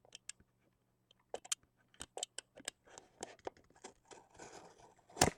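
Scattered clicks, scratches and rustles of a shrink-wrapped cardboard box of trading cards being handled and its wrapper being cut, with one sharp knock near the end.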